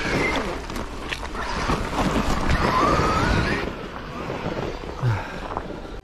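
Traxxas X-Maxx 8S RC monster truck's brushless electric motor whining as it drives, the whine rising in pitch about two and a half seconds in, over wind noise on the microphone. A low thump comes about five seconds in.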